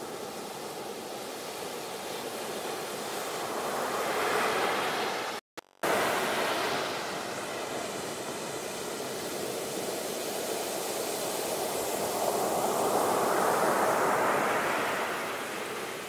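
Sea waves surging and washing, the noise of the water swelling twice, about five seconds in and again near the end, with a sudden half-second break in the sound between the two swells.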